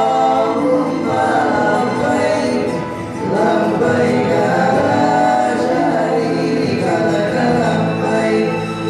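Male nasyid vocal group singing in close harmony, several voices sustaining chords together, with a brief dip in loudness about three seconds in.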